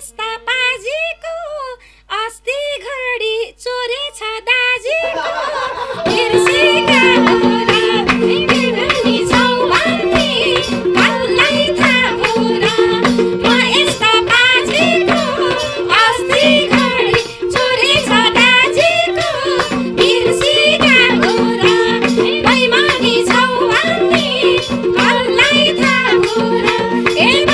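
Nepali live dohori folk music. A single voice carries a melodic phrase alone for about five seconds, then the band comes in loud and full: madal drums, a droning harmonium and a sarangi playing a running melody.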